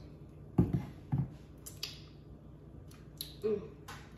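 A few short sharp clicks and knocks of a plastic syrup bottle being handled and set down on the countertop, then a brief wet mouth sound about three and a half seconds in as syrup is licked off a finger.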